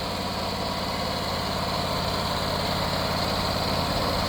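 Portable sawmill's engine running steadily, getting a little louder about halfway through.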